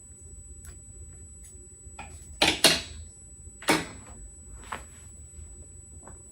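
Heat-resistant sublimation tape being pulled off its roll and pressed down: a few short tearing rips, the loudest two about two and a half seconds in and another near four seconds, with small clicks of handling between them.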